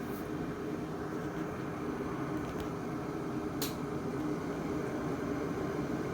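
Glass electric kettle heating water short of the boil: a steady hiss and low rumble as small bubbles form on the glass, with two short ticks a second apart in the middle.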